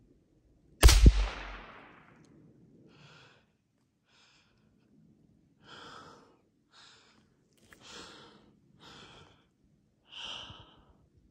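A single gunshot from a hunting gun about a second in, its echo fading over about a second. It is followed by softer short sounds that recur roughly once a second.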